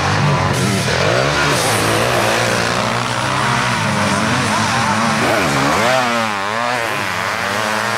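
Several racing engines of sidecar motocross outfits running at once, revving up and down as they race past. The loudest swoop, a rise and fall in pitch, comes about five to seven seconds in as one goes by close.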